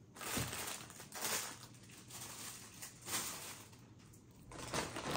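Plastic packaging rustling and crinkling in several short bursts, as items are handled and a bag is rummaged through.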